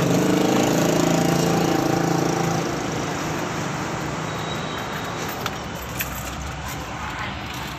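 Sound effects from an anime fight scene: a steady, engine-like pitched hum that dies away after about two and a half seconds, leaving a steady rushing noise.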